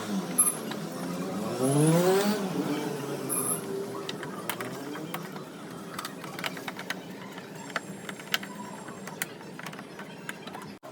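An engine revs up once, briefly, about two seconds in. After that come scattered sharp clicks and metallic knocks, like tools being worked on a motorcycle.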